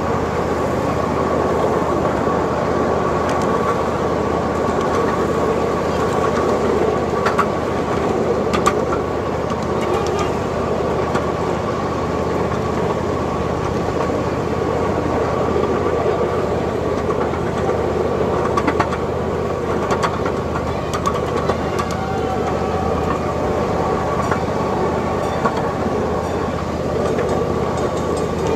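Miniature ride-on train running along its track: a steady rumble of wheels and running gear with a constant whine, and now and then a sharp click from the rails.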